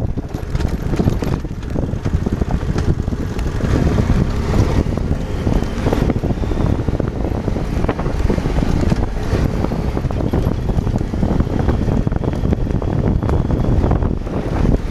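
Adventure motorcycle riding over a rough gravel trail: its engine runs under heavy wind buffeting on the microphone, with occasional knocks from the rocky surface.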